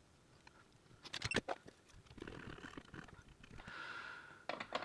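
Faint scratching and crackling of copper desoldering braid being drawn across the pads under a soldering iron, with a few sharp clicks about a second in and again near the end.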